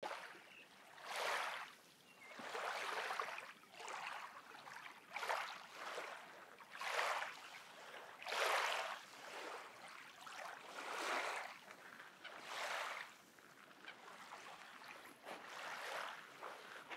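Small lake waves washing onto a sand shore, a soft splash and wash every second or two at an uneven pace.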